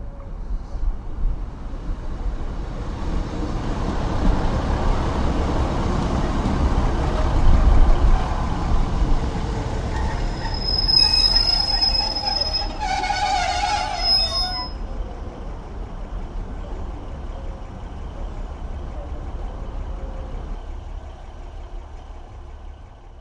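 A train's rumble builds up and then slowly dies away. In the middle there are a few seconds of high-pitched metal squealing from its wheels.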